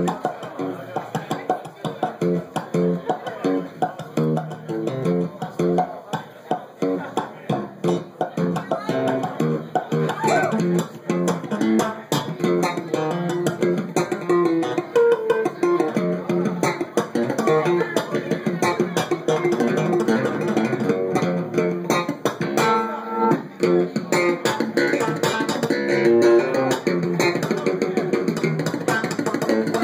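Amplified electric bass played solo in rapid runs of short notes, mostly in its middle and upper register. The playing grows busier about ten seconds in.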